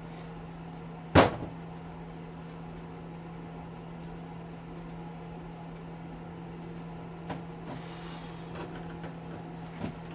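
One sharp, loud clank about a second in, then a few light clicks and taps: metal and plastic parts being handled while a hedge trimmer is taken apart. A steady low hum runs underneath.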